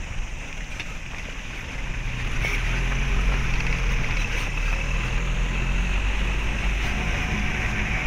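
Vehicle engine running as it drives along a dirt track, with a steady low rumble and wind noise on the microphone; the engine gets louder about two seconds in.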